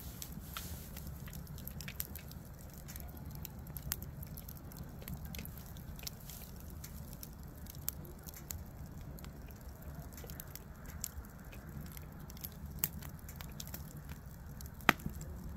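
Wood bonfire of dry, cedar-like firewood crackling, with irregular sharp pops over a steady low rumble of the burning fire; one loud pop near the end.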